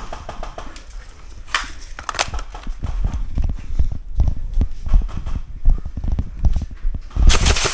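Quick, irregular footfalls and knocks of an airsoft player moving through close-quarters cover, with sharp knocks among them. Near the end comes a loud, sustained burst of noise.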